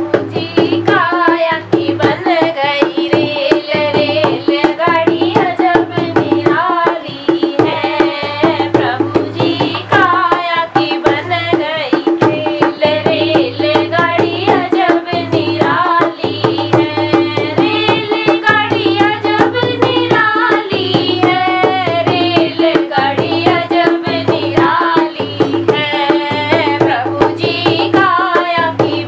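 A girl singing a Hindi devotional bhajan while playing a rope-tensioned Hansraj dholak with her hands: a dense, steady run of hand-drum strokes under the sung melody, which pauses briefly between lines.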